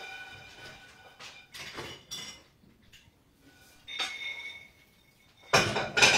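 Dishes and cutlery clinking on a table. Several light clinks leave short ringing tails, and there is a louder clatter near the end.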